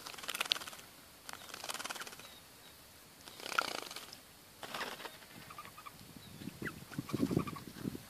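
Red-vented bulbuls bathing in a shallow pool, splashing water and fluttering their wings in about five short bursts with brief pauses between them.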